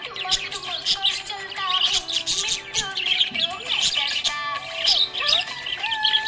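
Budgerigars chirping and warbling in quick, busy calls over background music with held notes.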